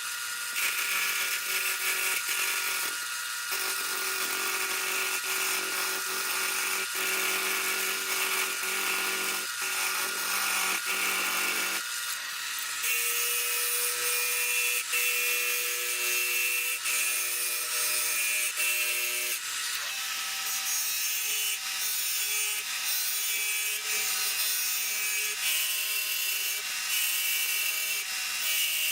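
Wood lathe running with a turning tool cutting a spinning Northern Catalpa pencil blank: a steady hiss of shaving wood over the motor's hum, with scattered small ticks. The pitch of the motor and cutting pattern shifts about twelve seconds in and again near twenty seconds.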